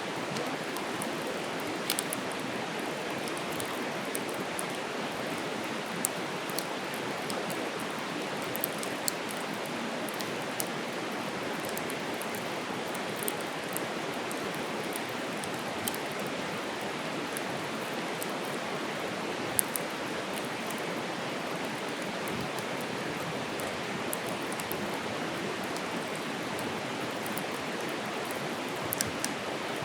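Wood campfire burning: a steady rushing hiss with scattered sharp crackles and pops from the burning wood, the loudest pop about two-thirds of the way through.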